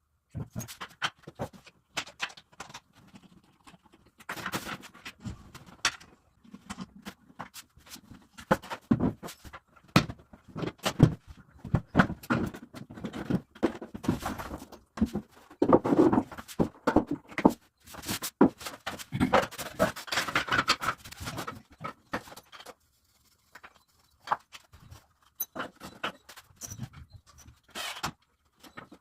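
Irregular clicks, knocks and scrapes of sink-vanity cabinet parts and fittings being handled and fitted together by hand.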